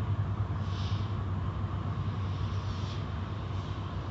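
Automatic car wash machinery running with a steady low hum, with a few brief hissing swishes.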